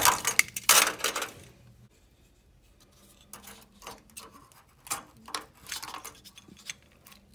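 A flat-head screwdriver prying an electric water heater's thermostat up out of its metal mounting clip: a quick run of sharp metallic clicks and scraping in the first second or so, then lighter clicks and rubbing as the thermostat is worked loose in its bracket by hand.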